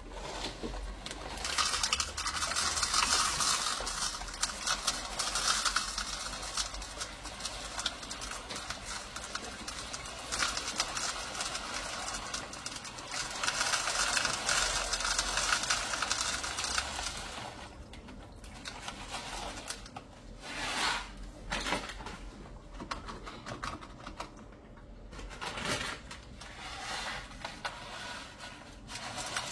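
Granular dishwasher salt being poured into the water-filled salt reservoir: a dense, gritty rush of granules for a good half of the time, thinning after that into scattered rustles and clicks.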